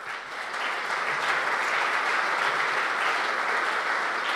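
Audience applauding: clapping breaks out suddenly and keeps up at an even level.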